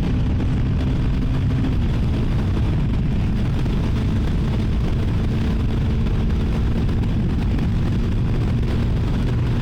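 CFMoto 300NK's single-cylinder engine running steadily through its stock exhaust while riding, with wind rushing over the helmet-mounted microphone.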